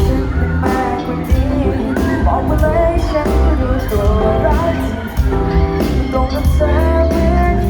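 Live pop song: a woman singing over a band with bass and drums.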